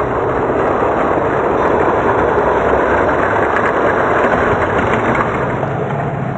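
Six die-cast Hot Wheels cars rolling fast down an orange plastic Hot Wheels track, a steady rumble that cuts off abruptly at the very end.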